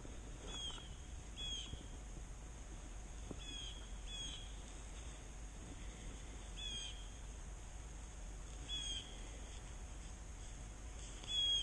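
A bird calling: short, high chirps repeated at irregular intervals, about every one to three seconds, faint.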